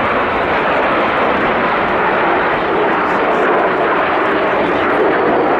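Steady jet engine noise from a formation of aerobatic display jets flying past.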